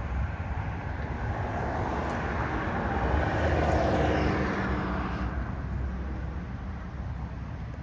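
A pickup truck driving past close by: its tyre and engine noise swells to a peak about four seconds in and fades away over the next second or so, over a steady low rumble.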